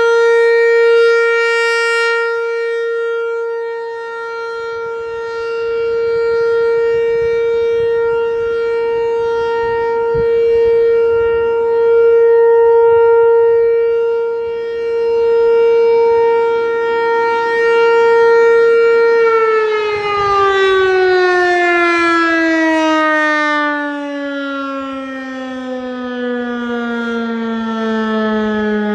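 American Signal T-128 outdoor warning siren sounding one steady tone, its loudness swelling and fading every few seconds as the rotating head sweeps past. About two-thirds of the way through, the siren is cut off and its pitch falls steadily in a long wind-down.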